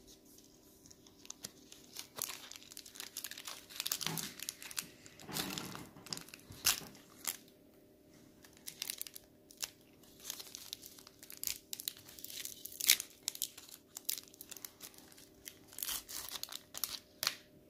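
Cadbury Chomp bar's plastic wrapper crinkling and tearing as it is pulled open and peeled down by hand, in a long run of sharp, irregular crackles.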